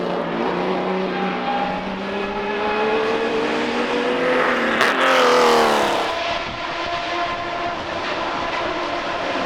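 Straight-six Procar 4000 race cars running on the circuit, several engines heard at once. One engine rises steadily in pitch as it accelerates and is loudest about five seconds in, then its pitch drops as it goes by.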